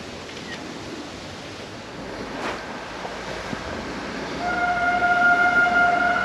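Motorcycle riding, its engine and rushing air making a steady noise; about four seconds in a loud, steady pitched tone starts over it and holds.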